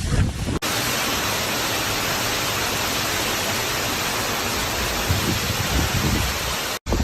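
Heavy hurricane rain and wind making a steady, even hiss, which starts abruptly about half a second in after a brief low rumble and cuts off abruptly near the end.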